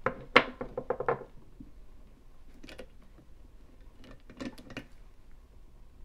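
Quick run of sharp clicks and knocks, then a few lighter clicks twice more, from a clear practice tubular lock being handled and taken out of a lockpicking vise.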